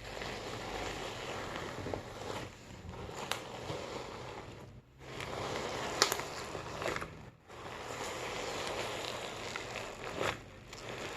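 Putty slime packed with foam beads being squeezed and kneaded close to the microphone, the beads crackling in long spells of dense crackle with a few sharp pops, broken by brief pauses about five and seven and a half seconds in.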